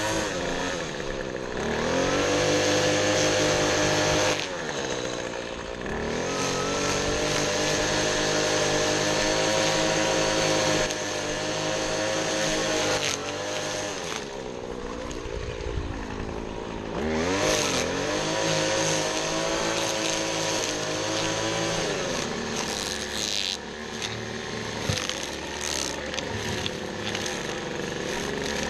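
Small petrol engine of a handheld lawn tool, opened up to full throttle and let back down to a lower speed several times, with the pitch rising and falling each time.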